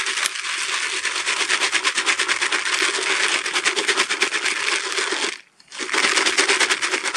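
Carp boilies and pellets rattling in a plastic bucket as it is shaken to mix the bait, a dense run of clicks that stops briefly about five and a half seconds in, then starts again.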